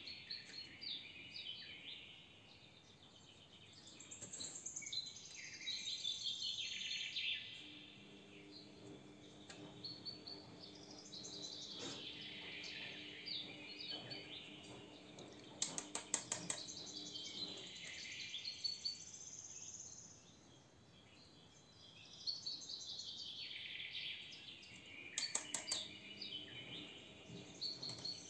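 A bird singing in repeated bouts of quick, falling chirps and trills, with a faint steady hum partway through and a few sharp clicks.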